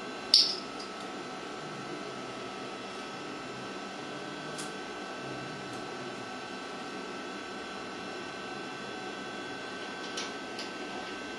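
Small clicks of a flexible water connection pipe and its nut being handled and hand-threaded onto an instant geyser's hot-water inlet, the sharpest click about half a second in and a few faint ticks near the end. A steady low hum runs underneath.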